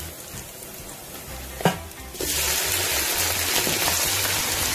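Chopped onions frying quietly in hot oil, then a sharp knock about a second and a half in, and just after two seconds a sudden jump to loud, steady sizzling as raw chicken pieces go into the hot oil.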